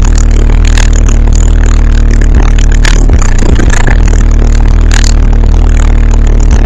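Car audio subwoofers playing a bass-heavy song at very high volume, heard from inside the car: deep, steady bass notes with a few sharp hits, the recording overloaded.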